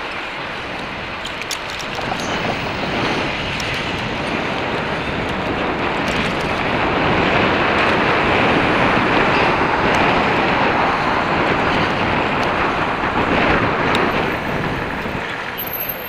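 Wind rushing over the microphone of a camera riding on a moving electric bike, with street traffic underneath. The rush grows louder midway and drops off near the end.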